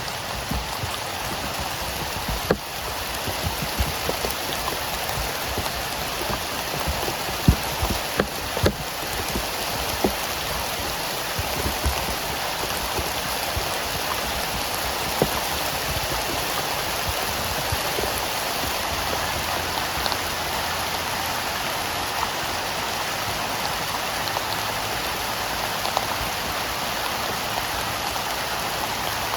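Heavy rain falling steadily, a dense even patter with a few louder single drop hits standing out, most of them in the first third.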